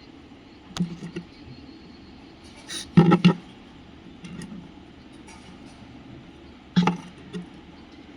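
A few sharp knocks and rattles, the loudest pair about three seconds in, over a steady low background.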